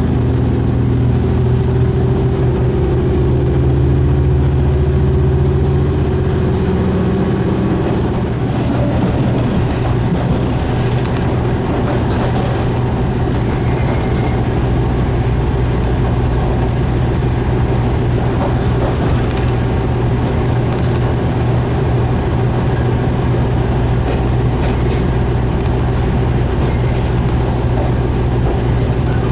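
Diesel railcar running, its engine giving a steady droning note over the rumble of the train, with the engine note changing about eight seconds in.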